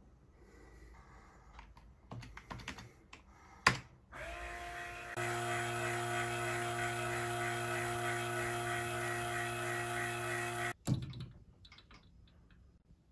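Small electric pump of a model steam plant starting up, running steadily with a hum and a whine for about six seconds, then stopping abruptly. A few clicks and a sharp knock come before it.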